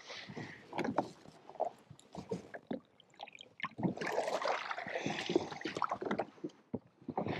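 Sea water splashing and sloshing at the side of a drifting Sea-Doo jet ski, with scattered knocks on the hull. The splashing grows louder about four seconds in.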